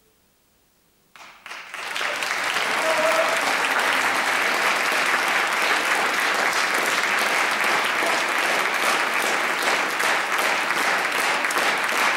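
Concert audience applauding, breaking out about a second in after a moment of silence at the close of a choral song.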